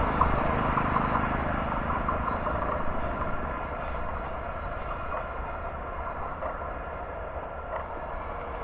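EMD WDG4 diesel locomotive running light, its two-stroke engine rumbling steadily and fading as it moves away along the track.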